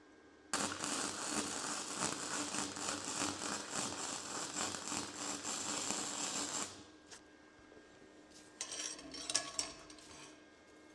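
Flux-core welding arc from a Titanium 125 welder on its low C4 setting, crackling steadily for about six seconds as it lays a bead on 1/16-inch thin-wall tube, then cutting off. A second, shorter burst of arc crackle follows about two seconds later.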